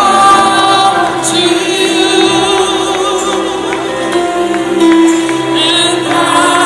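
Live gospel music: a group of singers on microphones singing together, amplified through a PA.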